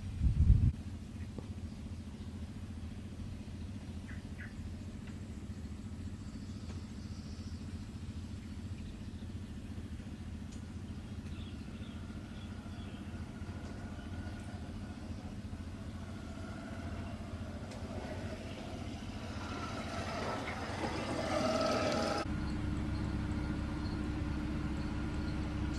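Steady low motor-like rumble, with a single thump just after the start and a louder, busier stretch near the end before the background changes abruptly.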